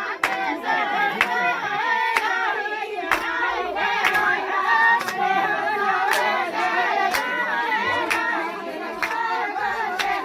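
Singing voices carrying a song, with a sharp hand clap about once a second keeping the beat.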